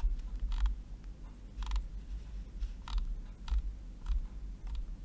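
Irregular soft clicks and short ticking runs from a computer mouse and its scroll wheel, about one every half second to second, over a steady low hum.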